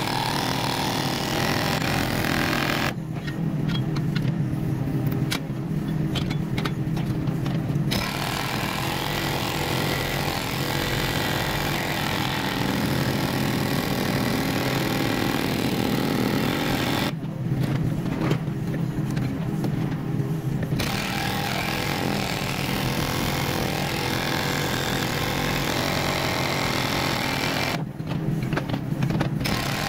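Kubota mini excavator's diesel engine running steadily under work. The noisy, rattling upper layer of the sound drops away for a few seconds three times, leaving the engine's low drone.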